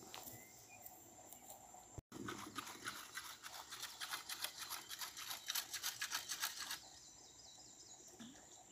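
Faint outdoor ambience by a lake, with a rapid faint crackling for a few seconds in the middle and a few faint high chirps near the end.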